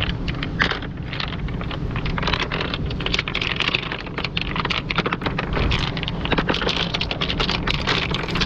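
Smooth, rounded beach pebbles being moved by hand and clacking against each other in quick, irregular clicks, over a steady low rumble.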